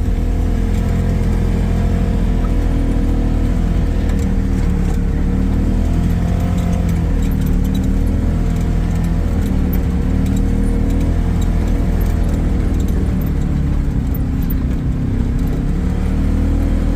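Engine of a snow-plowing vehicle running steadily, a continuous low drone with a slightly wavering higher tone.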